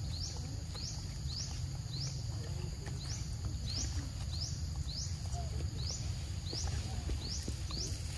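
A high call that rises and then holds briefly, repeated evenly about every half second or so from a small animal in the surrounding vegetation, over a steady low rumble.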